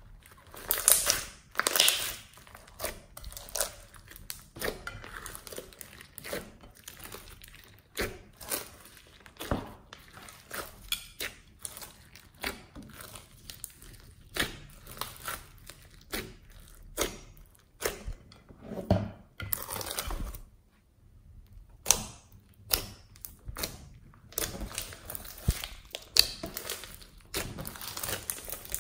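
Hand-kneaded slime mixed with foam beads, squeezed, stretched and poked: a run of irregular wet squelches, pops and crackles, with a brief pause about two-thirds of the way through.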